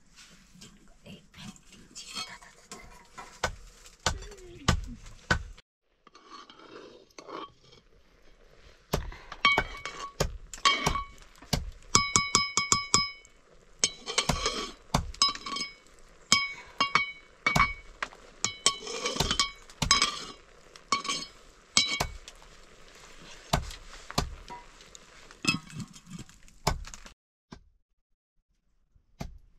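A metal spatula scraping and clinking against a shallow aluminium pan. The strikes come in quick clusters, each with a short metallic ring, and stop suddenly near the end.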